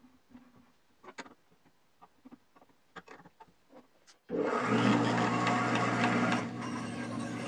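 Faint clicks and scrapes as bearing-type bandsaw blade guides are set by hand. About four seconds in, the bandsaw cuts in suddenly and runs with a steady hum. It is loudest for the first two seconds, then settles to a lower, even level.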